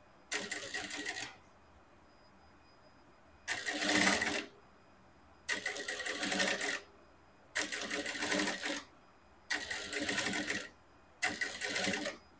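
Industrial lockstitch sewing machine stitching a seam in short runs, six bursts of about a second each with pauses between as the fabric is repositioned.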